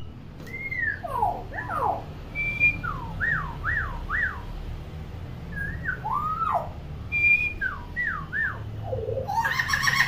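Common hill myna whistling a run of swooping notes that slide down and up in pitch, then a louder, harsher call near the end.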